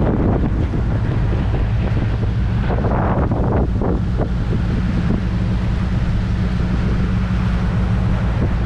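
Boat engine running steadily while trolling, with wind buffeting the microphone over it, loud enough to make talking hard to hear.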